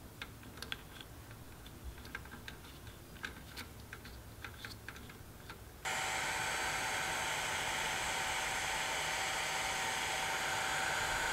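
Faint clicks of wires and heat-shrink tubing being handled, then about six seconds in a heat gun switches on suddenly and runs steadily with a faint whine, blowing hot air to shrink heat-shrink tubing over transformer leads.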